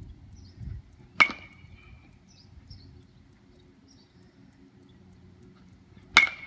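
Metal baseball bat hitting pitched balls twice, about five seconds apart: each hit is a sharp crack followed by a brief ringing tone from the bat.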